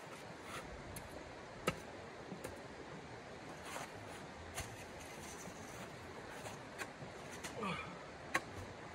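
Steady rushing of a shallow creek, with a few sharp clicks and knocks, two of them louder, about two seconds in and just before the end. Near the end, a short creak as a folding camp chair takes a person's weight.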